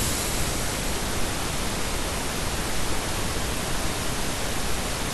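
Steady, even hiss of background noise with nothing else standing out.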